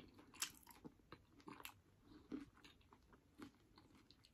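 Quiet chewing of a crunchy beef taco in a hard shell, with scattered crunches; the sharpest comes about half a second in.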